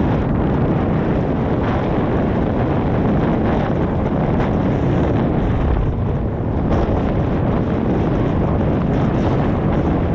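Wind buffeting the microphone in a steady low rumble, with the sea washing against the shore rocks underneath.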